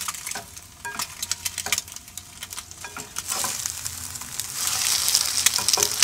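Leftover taco hamburger sizzling as it is warmed up, with scattered clicks at first. The sizzle grows louder about three seconds in.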